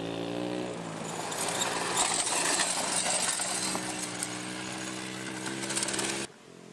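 Small engine of a homemade go-kart running hard, its pitch rising over the first second, then holding steady. About six seconds in, it cuts off abruptly to a much quieter sound.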